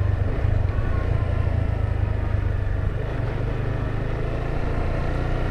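Motorcycle engine running at a steady cruising speed while riding, a continuous low drone.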